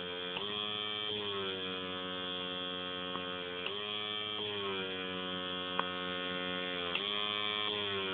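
Cat purring steadily up close while suckling on a child's ear, the pitch dipping briefly three times, with a few faint ticks.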